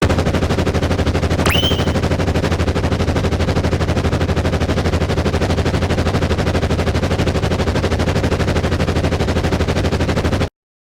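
Rapid, steady, low-pitched mechanical pulsing from an animation sound effect. It starts and cuts off abruptly, and a brief rising whistle-like swoop sounds about a second and a half in.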